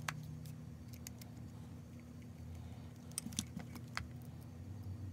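Scattered light clicks and taps of the plastic parts of a Shark RV871 robot vacuum wheel assembly and a pair of pliers being handled, with a small cluster of clicks about three and a half seconds in, over a faint steady low hum.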